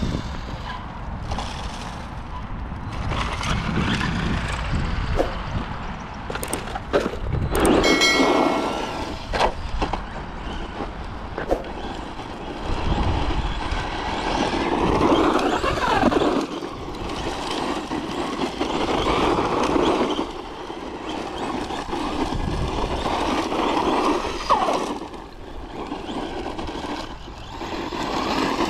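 Brushless electric motor of an FTX Ramraider 1/10 RC monster truck being driven, its whine rising and falling with the throttle. A few sharp knocks come about seven seconds in.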